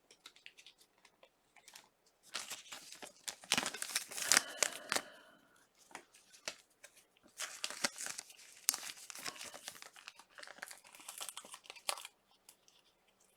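Crinkling and rustling of packaging as trading cards and their wrappers are handled, in two spells of a few seconds each with sharp crackles.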